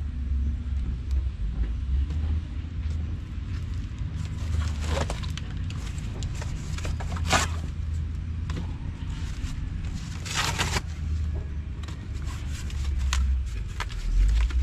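Pieces of dry cardboard being handled and pushed into a wood firebox, rustling and scraping in a few short spells, the longest about ten seconds in, over a steady low rumble.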